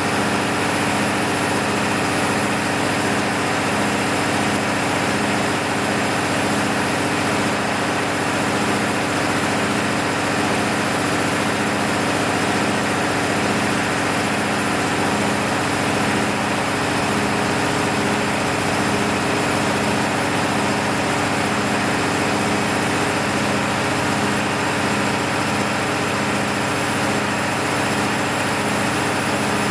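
Freshly overhauled MEP-006A military generator's six-cylinder diesel engine running steadily, with a faint regular pulse in its hum.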